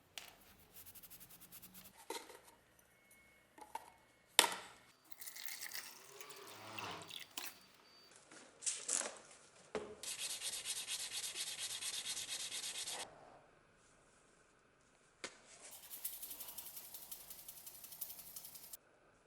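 Hand sanding and rubbing on the knife in a series of short stretches, including a run of quick even strokes near the end. There is a sharp knock about four seconds in.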